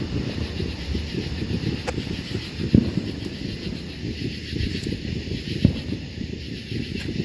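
Low rumbling wind and handling noise on a phone microphone, with a faint steady hiss and a few soft thumps.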